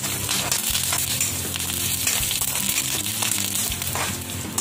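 Curry leaves, urad dal, mustard seeds and cumin sizzling in hot oil and ghee in an iron kadhai as a tempering (tadka), with a steel spoon scraping the pan a few times as it stirs.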